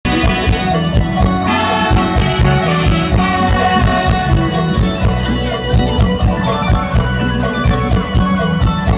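Loud live mor lam band music over a concert sound system, with a steady drum beat under held melody notes.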